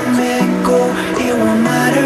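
Background music: a melody of held notes stepping up and down in pitch, with no heavy bass beat.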